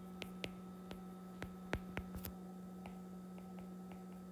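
Stylus tip tapping and clicking on a tablet's glass screen while handwriting, a string of light, irregular clicks over a faint steady low hum.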